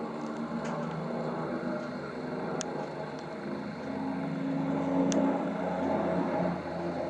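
Piston-engined propeller aircraft droning overhead, the engine note swelling to its loudest about five seconds in and easing off slightly. Two sharp clicks sound in between.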